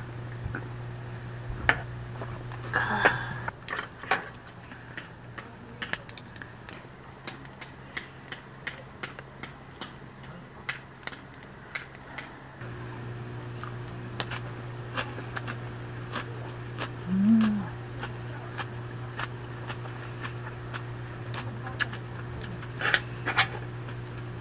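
Eating at a table: metal chopsticks and a spoon clicking and tapping against a metal bowl and pan, many small clicks spread through, over a steady low hum. One short hum of the voice, rising then falling, comes about two-thirds of the way through.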